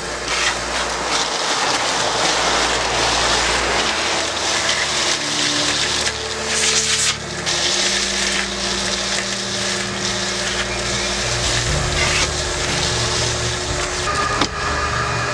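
Craftsman 9-gallon wet/dry shop vacuum running steadily, its motor rush loud and even, with some rattle of debris going up the hose.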